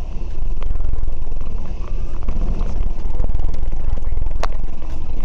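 Bus heard from on board while running: a steady, loud low rumble of engine and road, with light rattles throughout and a sharp click about four and a half seconds in.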